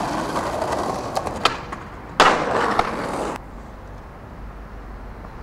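Skateboard wheels rolling on pavement with a few sharp clacks. A little over two seconds in comes a sudden loud hit of the board, then about a second more of rolling that cuts off suddenly.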